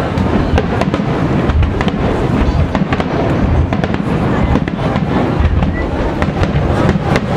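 Nagaoka fireworks aerial shells bursting in rapid succession: many sharp bangs close together over a continuous low rumble, as several shells go off at once.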